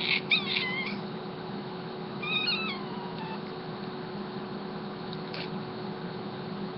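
Young cat meowing in response to a sneeze: a few short, high meows right after it, then one longer meow with a wavering pitch about two seconds in.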